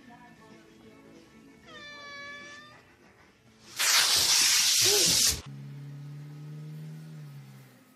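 A cat meows once, then hisses loudly for about a second and a half at a lint roller being run down its back. A low, steady, drawn-out tone follows for about two seconds.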